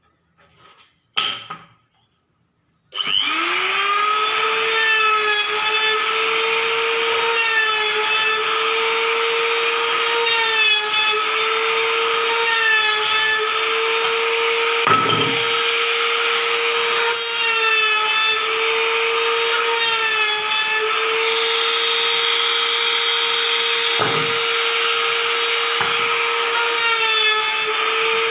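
Electric wood trimmer (trim router) starting up about three seconds in and running with a steady high whine, its pitch dipping briefly every couple of seconds as the bit bites into the wood. A few light knocks come before it starts.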